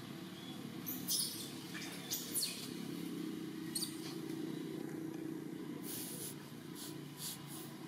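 Several short rustles and crackles of dry leaves underfoot as long-tailed macaques walk across leaf litter, the loudest about a second in and again near two and a half seconds. A steady low engine-like drone carries on in the background.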